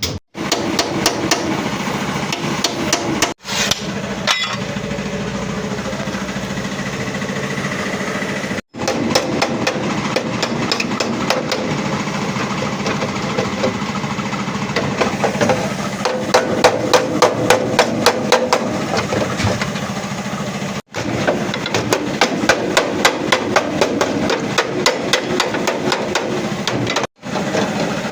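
Rapid, repeated hammer blows on sheet metal, several strikes a second, as the crash-damaged front body panels of a Suzuki Ravi pickup are beaten back into shape, with a steady machine hum underneath.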